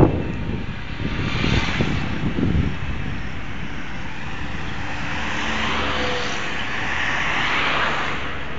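Rushing noise from a bicycle moving along an asphalt road: wind across the microphone and tyres rolling on the tarmac. It swells about two seconds in and again near the end.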